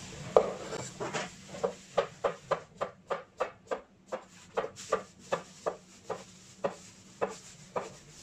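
Chinese cleaver slicing a cucumber on a bamboo cutting board: a steady run of sharp knocks, about three a second.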